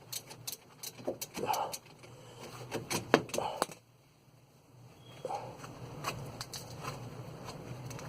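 Irregular sharp metallic clicks and clinks of a spanner working a 17 mm bolt on a Toyota Yaris front brake caliper, thickest in the first four seconds. After a short quiet spell, a few more clicks come over a low steady hum.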